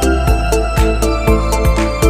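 Background music with a steady electronic beat, about two beats a second.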